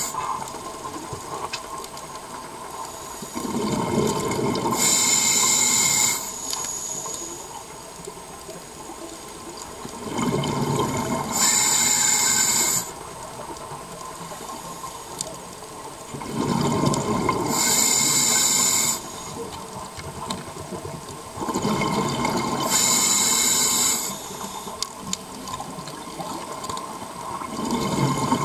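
Scuba diver breathing through a regulator: a rush of air and a loud hiss of bubbles with each breath, repeating steadily about every six seconds, four breaths in all.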